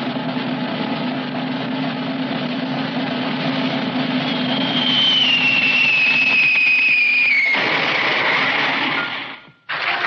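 Cartoon high-dive sound effects: a steady drum roll, then a whistle that falls in pitch over about three seconds. A noisy impact follows, and it cuts off abruptly into a brief silence near the end.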